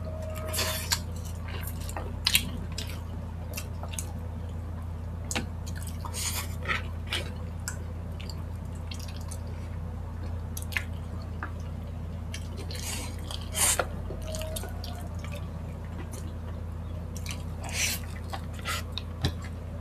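Close-miked wet eating sounds: lips smacking and sucking sauce off spicy chicken feet and fingers, with chewing, in scattered short wet clicks and smacks over a steady low hum.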